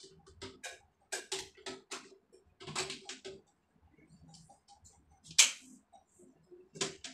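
Irregular plastic clicks and taps from a toilet seat and its hinge fittings being handled and set into place on a ceramic toilet bowl, with one louder sharp snap about five and a half seconds in.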